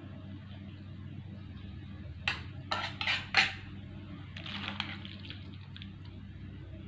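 A metal spatula clanks and scrapes against a wok as fried macaroni is scooped out. Four sharp clanks come a little over two seconds in, followed by about a second and a half of lighter scraping, all over a steady low hum.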